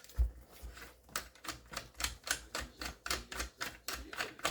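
A quick run of light metal clicks, about four a second, as a nut on an EGE Arms LEVAR 12S shotgun is loosened with the wrench supplied with the gun.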